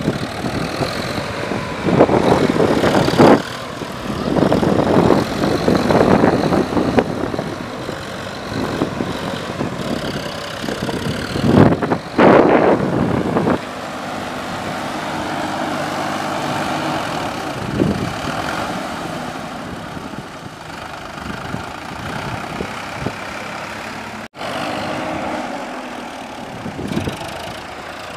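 Farm tractor engine running as the tractor drives through a flooded, muddy paddy field, with several loud noisy bursts in the first half over a steadier engine hum later on.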